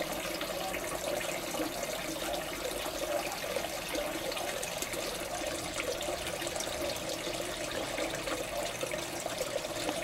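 Water running steadily from a pipe outlet into a fish tank: the warm-water return from a rocket-stove water heater, circulating by thermosiphon without a pump.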